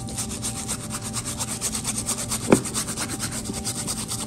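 Brush scrubbing the threaded steel leadscrew of a lathe compound slide in a parts washer, in rapid, even back-and-forth strokes, with one sharper knock about halfway through. The washer's pump hums steadily underneath.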